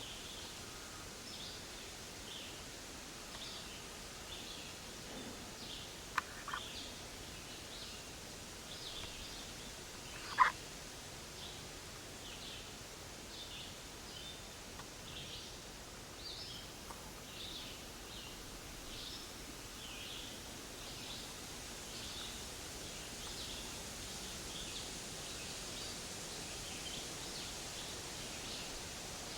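Outdoor ambience: short high-pitched animal chirps repeating about once a second over a steady hiss, with two small clicks about six seconds in and a sharper click about ten seconds in.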